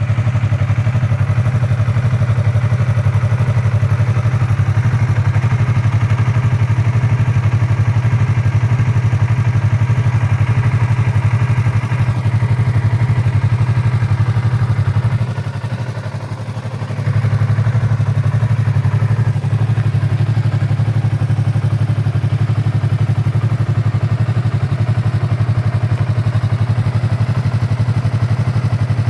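2015 Yamaha R3's 321 cc parallel-twin engine idling steadily on its stock exhaust. It goes quieter for a couple of seconds about halfway through.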